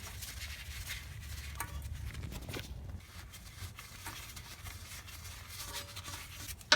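Faint rubbing and scratchy scraping from the ABS sensor bore in a 2005 Sprinter's rear hub being cleaned out, with a low steady hum underneath and one sharp click at the end.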